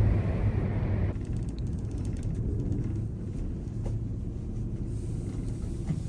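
Low, steady rumble inside a moving cable car cabin; about a second in, the higher hiss drops away, leaving mostly the low rumble.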